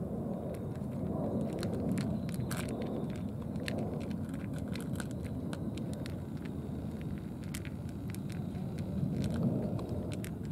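Three cats eating from trays: many small sharp clicks and crunches of chewing, irregular, over a steady low rumble.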